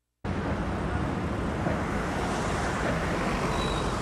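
City street traffic noise cuts in abruptly after a brief silence and runs steadily: cars passing on a busy road.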